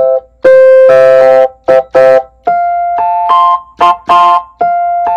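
Logic Pro's Classic Electric Piano software instrument, played from a Donner N-25 MIDI keyboard: a simple chord progression of about a dozen chords. Some are cut short and others are held for about a second.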